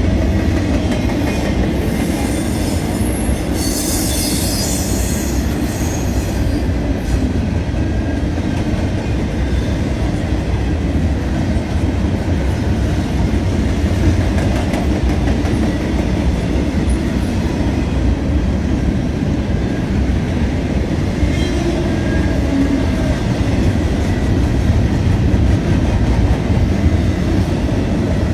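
A long train rolling past, a steady loud rumble of wheels on rail, with a brief high-pitched patch of noise about four seconds in.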